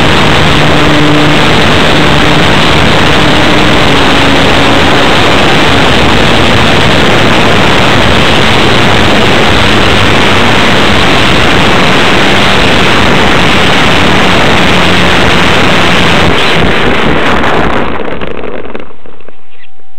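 Model airplane glow engine and air rushing over the onboard microphone, loud and overdriven, with the engine's low hum fading in the first couple of seconds while the wind rush carries on. The rush dies away suddenly near the end as the plane comes to rest on the grass with its propeller stopped.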